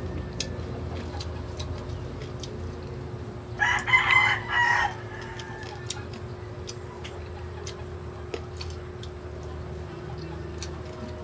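A rooster crowing once, about a second and a half long, a few seconds in. Faint scattered clicks and a steady low hum run beneath it.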